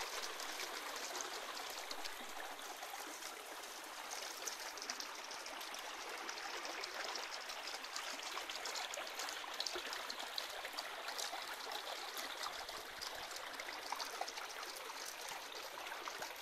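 Shallow stream running over stones and pebbles: a steady rush of trickling water.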